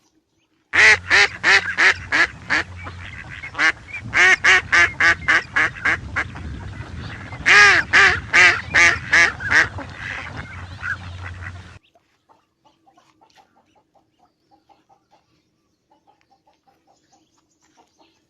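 A duck quacking loudly in three quick runs of calls, about four to five quacks a second, over a low steady hum. The sound cuts off abruptly about twelve seconds in.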